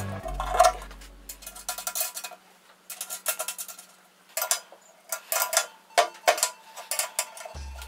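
Steel bolts, nuts and an open-end wrench clinking and clicking against the floor of a painted steel box as the nuts are fitted and tightened: a string of irregular sharp metallic taps. Background music plays for about the first two seconds, drops out, and comes back near the end.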